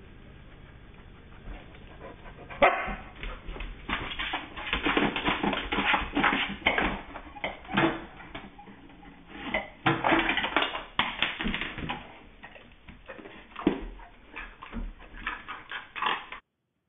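A large dog barking and yipping over and over, starting a couple of seconds in and cutting off suddenly just before the end.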